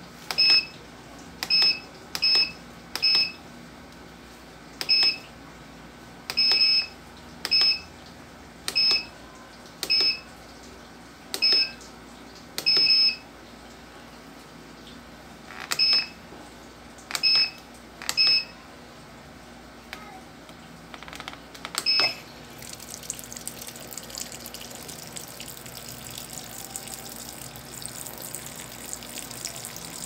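Washing machine control panel beeping as its buttons are pressed: about fifteen short, high electronic beeps at irregular intervals. Then, about two-thirds of the way through, water starts pouring into the tub as the machine fills, a steady splashing rush.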